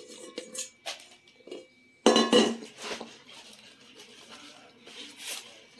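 Twist ties rattling and clinking in a stainless steel bowl, with a loud metallic clatter about two seconds in, then lighter scattered clinks and scrapes.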